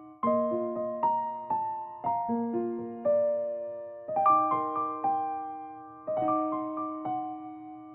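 Soft background music on a piano-like keyboard: broken chords with notes picked out one after another, a new chord about every two seconds, each note ringing and fading.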